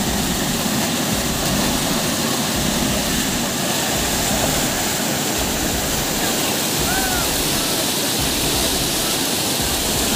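Steady rushing roar of a waterfall, with two short chirps about seven seconds in.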